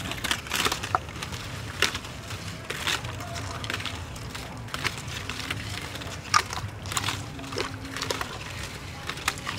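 Hands rubbing a wet chili, lemongrass and galangal marinade into a whole raw duck in a metal pan: irregular squelching, slapping and clicking as the bird is kneaded and turned.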